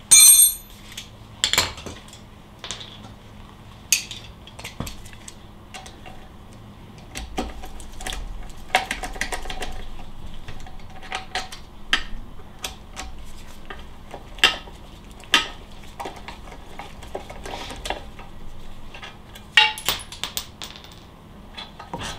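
Metal tools and loose Porsche 912 engine parts clinking, clanking and rattling as accessories are unbolted and lifted off the engine case, with a loud ringing metal clank right at the start and a busier spell of rattling and scraping about a third of the way in. A faint steady hum runs underneath.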